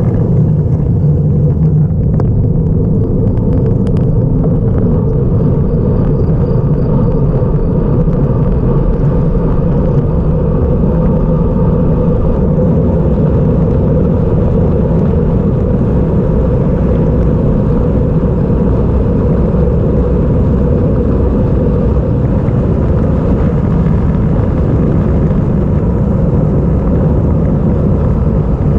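Wind buffeting a GoPro microphone on a fast road-bike descent: a loud, steady, low rumble of rushing air and road noise.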